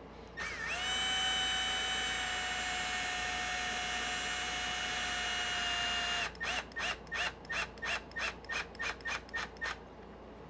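Cordless drill-driver's motor whining steadily for about six seconds as it drives a bolt into the RC truck's rear wing mount. It is then pulsed in about fourteen short bursts, about four a second, each rising in pitch, to snug the bolt without going too tight.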